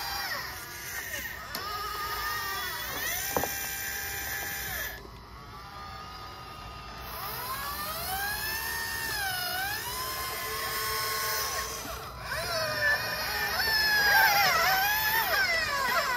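Despe RC hydraulic excavator working: the whine of its electric hydraulic pump rises and falls in pitch as the boom and bucket move under load, with one sharp click a few seconds in.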